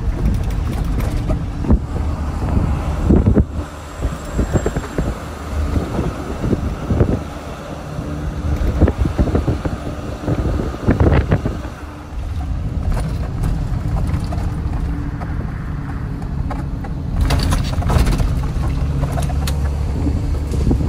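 Box truck driving, heard from inside the cab: steady engine hum and road noise, with frequent knocks and rattles and a few louder bursts of noise near the end.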